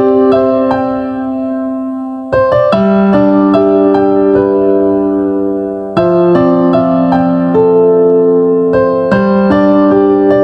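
Slow intro music on a piano-like keyboard: held chords, with a fresh chord struck about every three to four seconds and single notes in between.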